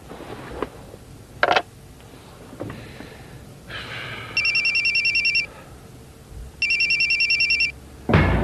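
Motorola mobile phone ringing with an electronic trill, two rings of about a second each with a short pause between. A few faint clicks come before the rings.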